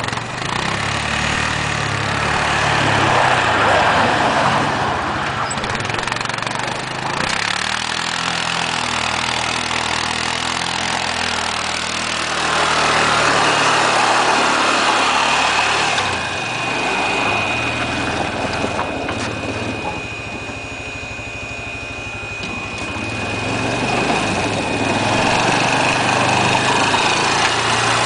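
ATV engine running under load as the quad pushes snow with its front-end loader bucket, revving up and easing off three times. A thin, steady high whine runs through the second half.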